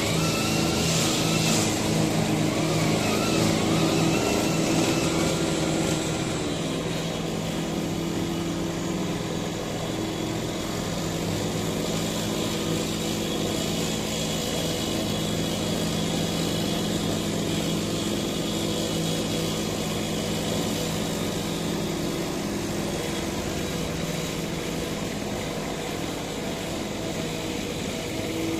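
Small petrol engines of backpack brush cutters running steadily as they trim grass. The drone is a little louder for the first few seconds, then settles.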